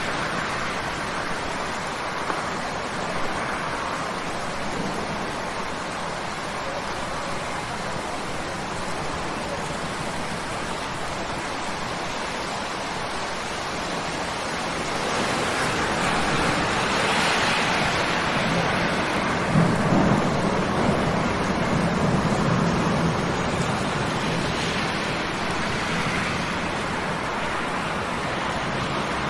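Rain falling on a river: a steady hiss of drops on the water that swells louder about halfway through, with a low rumble and a few sharper splashes about two-thirds of the way in.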